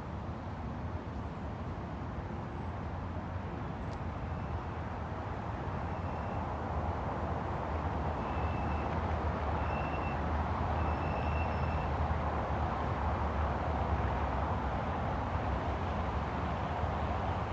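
City street traffic: a steady rumble of vehicles that swells in the middle as traffic passes close by. Several short high beeps or chirps sound about a third of the way in.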